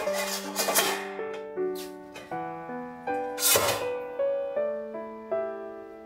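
Gentle piano background music, with a few brief metallic clanks and scrapes from a stainless-steel wok and its steamer insert being lifted and handled. The handling noises come about a second in and again around three and a half seconds in.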